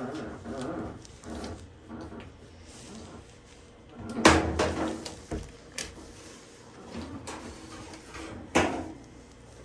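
Knocks and clunks of parts being handled on a Samsung washer during suspension rod replacement. The loudest clunk comes about four seconds in and a sharp knock near the end.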